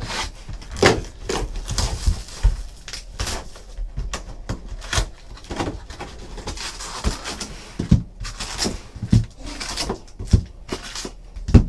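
Hands opening a sealed trading-card hobby box: shrink wrap slit with a box cutter and pulled off with crinkling and rustling, the cardboard lid opened, and the card packs taken out and set down on a table with scattered light knocks. A louder knock comes near the end.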